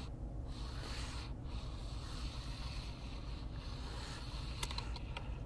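Faint steady rumble and hiss of a kayak drifting on calm sea while a spinning reel winds in a hooked fish, with a few light clicks near the end.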